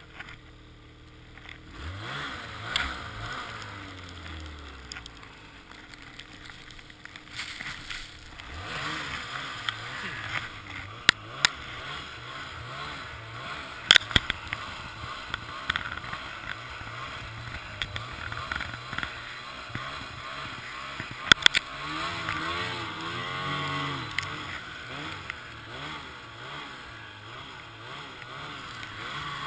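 Ski-Doo 800 E-TEC XRS snowmobile's two-stroke twin engine running and revving up and down while riding through deep snow, with a few sharp knocks along the way.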